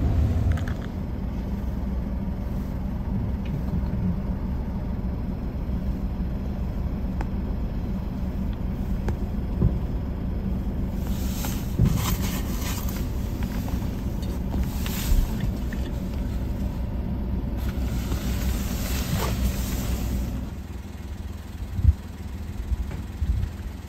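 Steady low rumble of a car's engine, heard from inside the cabin, with a few spells of hissing partway through. The rumble eases about twenty seconds in, and a single knock follows soon after.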